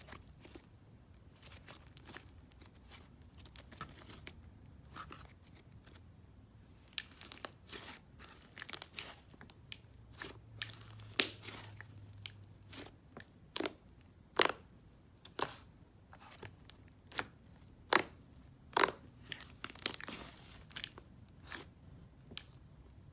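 Thick clay-based butter slime being handled: faint crackles at first, then from about seven seconds in a run of sharp pops and tearing crackles, roughly one a second.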